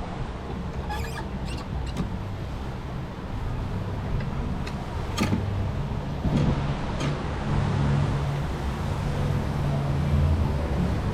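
Low, steady wind rumble on the microphone, getting louder in the second half, with a few light clicks and knocks scattered through it.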